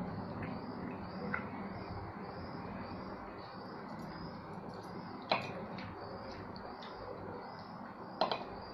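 Fingers mixing and squeezing rice and dal on a stainless steel plate, with three sharp clinks against the steel, the loudest about halfway through and two close together near the end.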